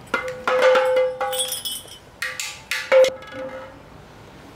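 Green plastic toy pellet drum twisted back and forth, its beads on strings striking the drumhead in quick, ringing taps. Two bursts of tapping, the second and loudest strike about three seconds in, after which it stops.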